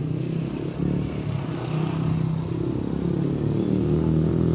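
Truck engine running with a steady low drone, its pitch shifting slightly up and down and growing a little louder toward the end.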